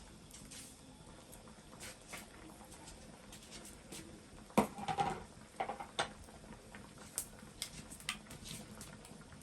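Scattered light clicks and taps, with a louder run of knocks and clatter about halfway through.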